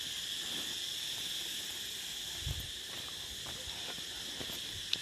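Steady, high-pitched insect chorus, with a soft low thump about halfway through and a short click near the end.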